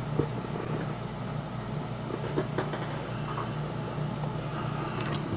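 Steady low background hum, like a room air conditioner or fan, with a few faint light clicks of small parts being handled on a workbench.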